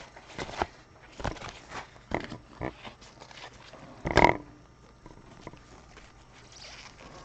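Trading cards being handled and laid down on a table: scattered light clicks and rustles, with one louder short noise about four seconds in.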